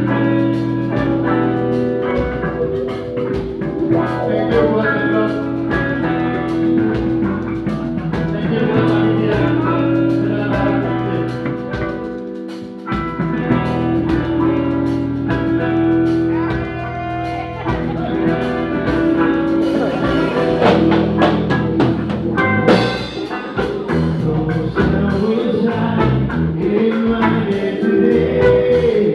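Live band playing: electric guitar, bass guitar and drum kit, with a singer's voice over the top.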